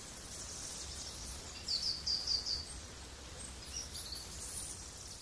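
Forest ambience with birds chirping: a quick run of about five short, high chirps about two seconds in, and a few fainter ones later, over a soft hiss.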